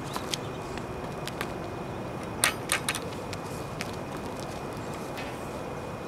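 Handling knocks from a plastic bucket with a wire handle and a long pole: a few light clicks, and a quick run of three louder clattering knocks about two and a half seconds in. Underneath runs a steady hiss with a faint constant high tone.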